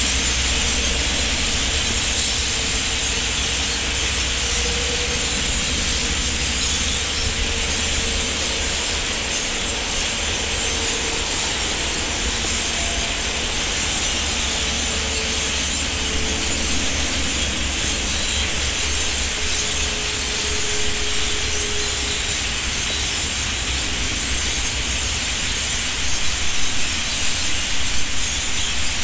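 Steady din of a huge flock of birds flying over, countless calls and wingbeats blending into one continuous hiss, with a low rumble of wind on the microphone underneath.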